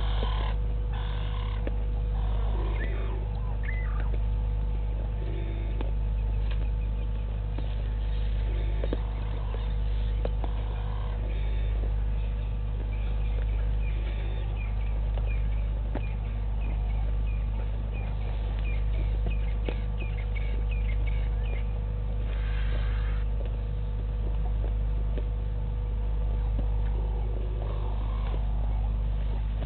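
Steady low electrical-type hum with a faint steady tone above it. Faint bird chirps come over the hum, including a quick run of high chirps midway through.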